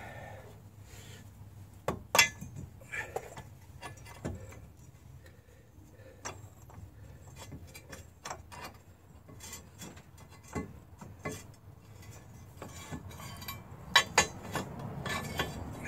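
Scattered metal clinks and knocks as steel press adapters are set into a homemade bottle-jack ball joint press frame, with a sharp knock about two seconds in and two more near the end.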